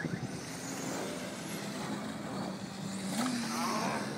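Electric 1/10-scale RC touring cars with 10.5-turn brushless motors whining as they race around the track, the pitch rising and falling as they pass, most plainly about three seconds in.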